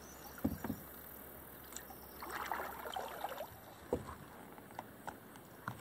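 Kayak paddling on calm water: the paddle dipping and dripping, with a few light knocks of the paddle against the hull.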